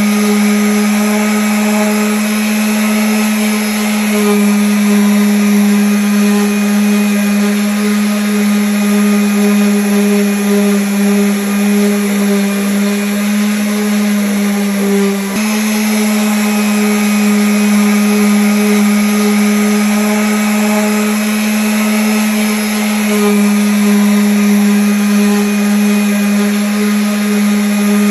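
Electric sander running steadily against wood: a loud, even motor hum over a sanding hiss, with a brief dip in pitch and level about halfway through before it settles back.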